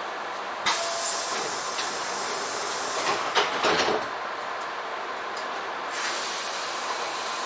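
Compressed air hissing from a standing electric train, starting suddenly under a second in, with a cluster of sharp knocks about three to four seconds in.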